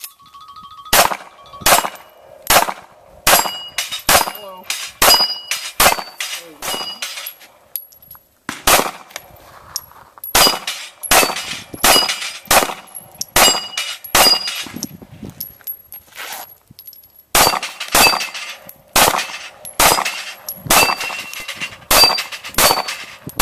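Strings of quick pistol shots at steel plate targets, each hit leaving the steel ringing with a high clang; the shots come about two a second, with two short pauses. A steady beep sounds just before the first shot.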